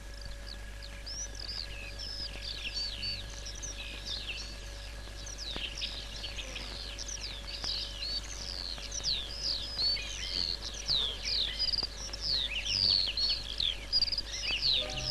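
Many small birds chirping and twittering in quick, overlapping calls that grow denser and louder, over a faint steady hum.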